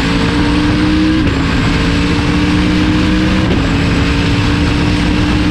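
Corvette time-attack race car's 427 cubic-inch V8 under load, heard from inside the cockpit. The engine note climbs slowly and drops in pitch twice, about a second in and again about three and a half seconds in, as it shifts up.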